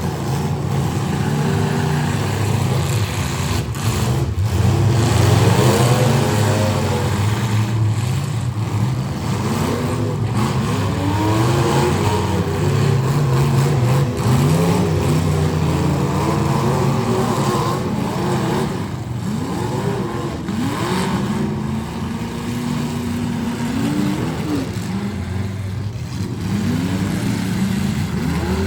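Several full-size demolition derby cars' engines revving hard at once, their pitches rising and falling over and over, with a few sharp bangs in the mix.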